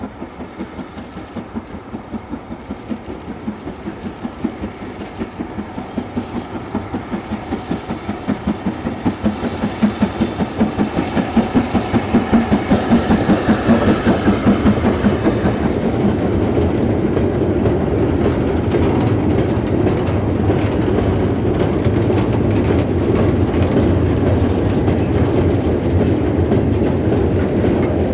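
LMS 8F 2-8-0 steam locomotive chuffing, its regular exhaust beats growing louder as it approaches and passes about halfway through. After it, a long rake of goods wagons rolls by with a steady rumble and the clickety-clack of wheels over rail joints.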